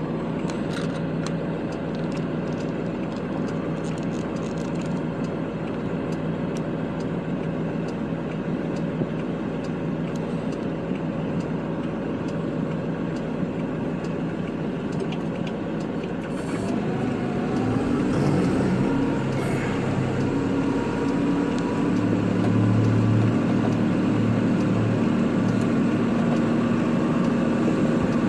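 Kubota tractor's diesel engine running steadily, then growing louder with new, stronger tones about two-thirds of the way through as it works harder.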